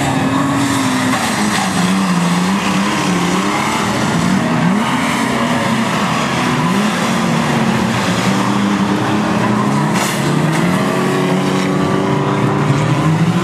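Stockcar engines revving up and down over and over as several cars race around a dirt oval. There is one short, sharp bang about ten seconds in.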